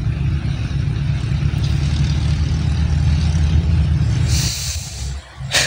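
Low, buffeting rumble of wind on the microphone outdoors. Near the end it drops away with a brief hiss and one sharp click.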